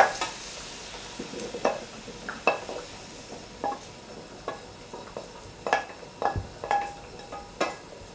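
Wooden spatula scraping and knocking against a stainless steel sauté pan as cooked peas, broad beans and courgette are pushed out into a ceramic bowl: a dozen or so irregular knocks, several with a short metallic ring, over a faint sizzle.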